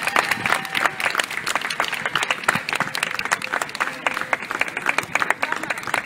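Outdoor crowd applauding: many hands clapping at once in a dense, irregular patter.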